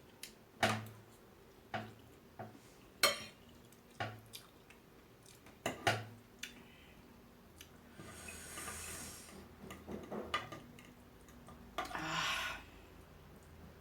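Eating utensil clicking against a bowl about six times, then two noisy slurps of soupy instant noodles, the second shorter, near the end.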